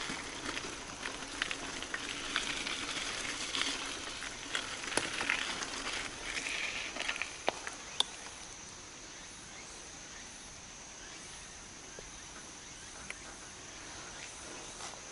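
Mountain bike rolling over a rough dirt trail, its tyres crunching on gravel with scattered sharp clicks and knocks. It grows quieter from about eight seconds in.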